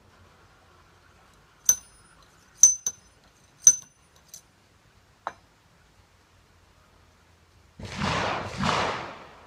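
Loading a Feinwerkbau History No.1 underhammer muzzle-loading pistol: about six sharp metal clinks with a bright ring over the first few seconds as the steel ramrod knocks against the muzzle, then two short scraping strokes near the end as the ramrod pushes the charge down the bore.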